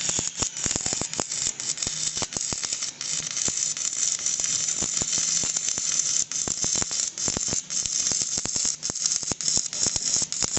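Electric arc welding on thick steel plate: the arc runs continuously with a dense, irregular crackle over a steady hiss.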